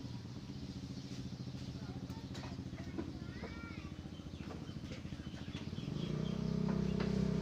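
A small engine running, with a fast steady pulse, growing louder from about six seconds in. A brief chirp about midway.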